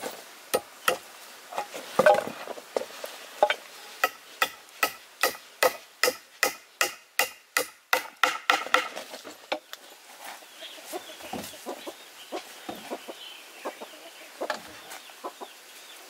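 Chickens clucking around a farm yard. For the first nine seconds or so a fast, even run of sharp knocks, about three a second and getting quicker, sits over the clucking. After that, softer scattered clucks and peeps go on.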